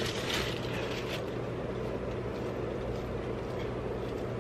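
A steady low hum throughout, with soft rustling of chopped raw cabbage in the first second or so as hands work ground beef into it.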